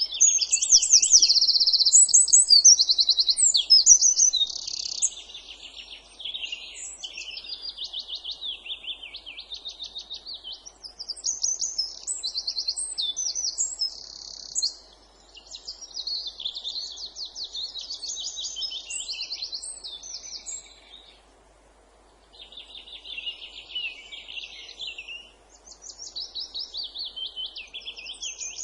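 Songbird singing a near-continuous run of fast, high-pitched trills and repeated-note phrases, with a short break about three-quarters of the way through.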